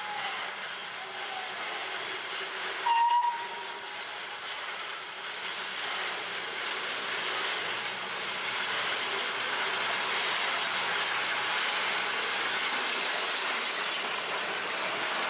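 Alishan Forest Railway's 28-ton Shay geared steam locomotive No. 21 gives one short whistle blast about three seconds in, over a steady hiss of steam that grows louder through the second half.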